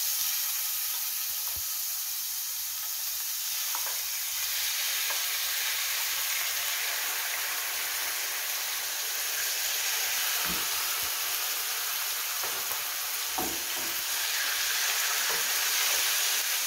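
Diced raw chicken breast sizzling steadily in hot oil in a frying pan as more pieces go in and are stirred with a wooden spoon, with a few light knocks.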